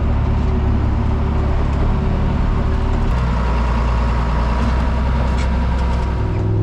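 A vehicle engine running steadily. Its pitch steps down about three seconds in and rises again near the end.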